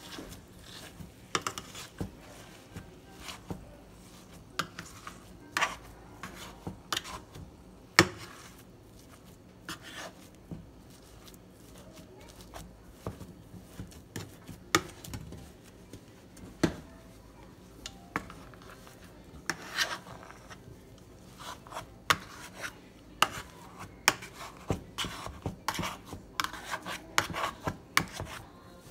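A white plastic spoon mashing boiled potatoes in a metal pot: irregular knocks and scrapes of the spoon against the pot and through the potatoes, one sharp knock standing out about eight seconds in.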